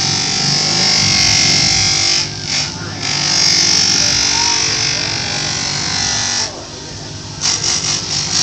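A bench-motor buffing wheel running with a steady hum, with a loud hissing rub as a wooden kukri scabbard is pressed against it for polishing. The rub breaks off briefly a couple of seconds in and stops about six and a half seconds in, leaving the motor hum, then a few light clicks near the end.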